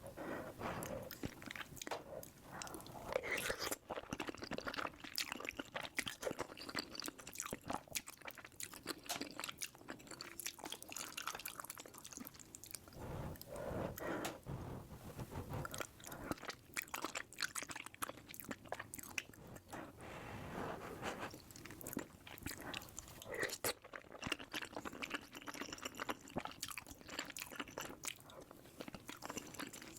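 Close-miked chewing and biting of crunchy food, with dense, irregular crackles and crunches.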